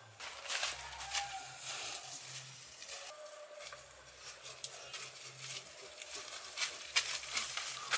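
Footsteps and rustling in dry leaves and grass as a person moves through undergrowth, with a few sharp crackles near the end.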